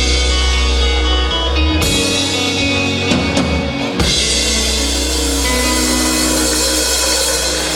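Rock band with drum kit, bass and guitar playing the closing bars of a song. A drum hit about four seconds in leads into a held final chord under a wash of cymbals.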